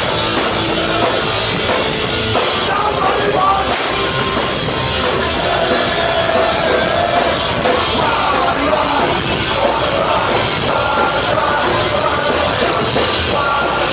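Punk rock band playing live at full volume: electric guitars, bass and drums with shouted singing, heard loud and crowded from among the audience.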